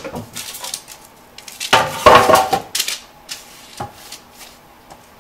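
A metal baking sheet clattering and knocking on a wooden counter, loudest about two seconds in, as rolled pie dough is unrolled onto it from a wooden rolling pin. A few lighter knocks come before and after.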